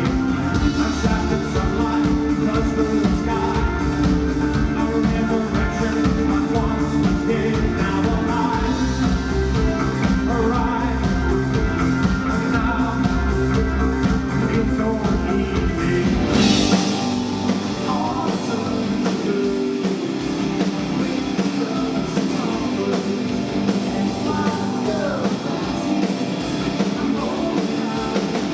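A rock song with singing, guitar and drums; about sixteen seconds in a crash marks a change, after which the deep bass drops away.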